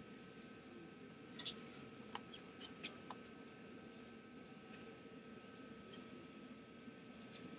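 Crickets chirping faintly at night: a steady high trill with a pulsed chirp repeating about twice a second.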